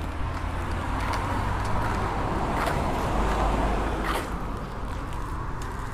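Road vehicle noise: a steady low rumble, with a swell of tyre and engine noise that builds and fades between about half a second and four seconds in, as of a car going by.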